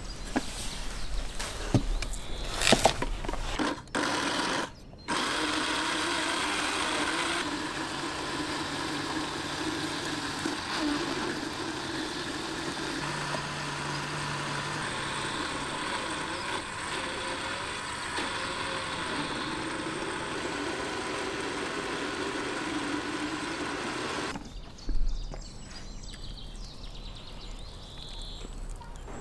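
Countertop electric blender running steadily for about twenty seconds, puréeing kiwi and onion into a marinade. It is preceded by a few knocks as pieces go into the jar, and cuts off near the end.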